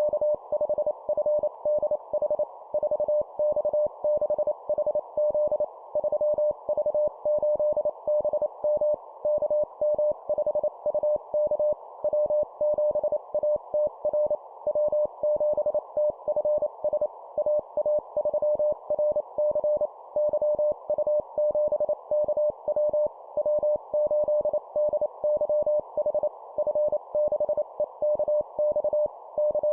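Morse code (CW) tone near 600 Hz keyed at 25 words per minute, sending call signs as a rapid stream of short and long beeps, over a steady narrow band of hiss.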